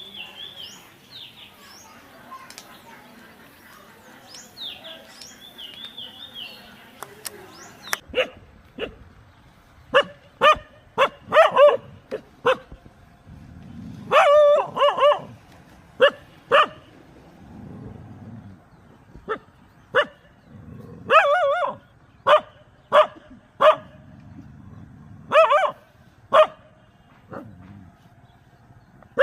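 A dog barking repeatedly in short, sharp barks, singly and in quick runs of two or three, starting about eight seconds in. Before that, faint bird chirps.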